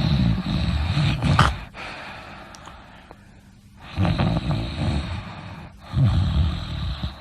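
A sleeping person snoring loudly with rough, fluttering snores. One snore comes at the start, then two more close together from about four seconds in, with quieter breathing in between.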